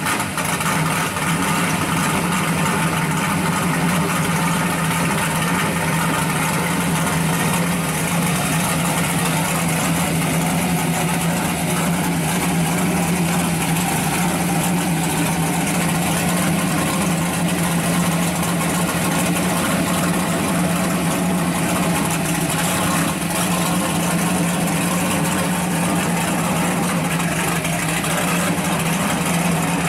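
1966 Chevrolet Chevelle SS drag car's V8 engine idling steadily as the car creeps along at walking pace.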